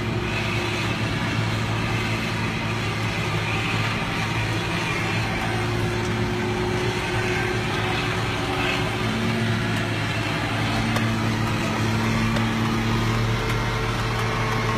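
Steady drone of a tractor engine running under load, heard from inside the cab, blended with a forage harvester chopping corn alongside. The engine note shifts slightly about nine seconds in.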